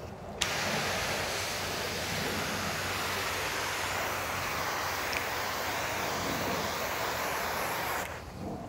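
Water sprayed at low pressure from a soft-wash nozzle onto vinyl siding, rinsing off the cleaning chemical: a steady hiss that starts abruptly about half a second in and cuts off near the end, as the spray is switched on and then off.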